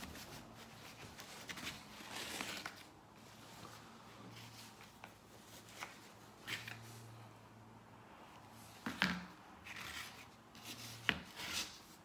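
A cloth rubbing metal polish over a brass lever door handle and its backplate, with soft scuffing on cardboard. A few sharp knocks as the handle is handled, the loudest about nine and eleven seconds in.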